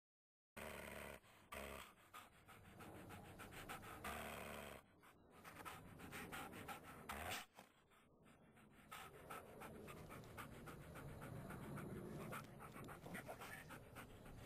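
Small white dog panting faintly and quickly while it paws and noses at a blanket.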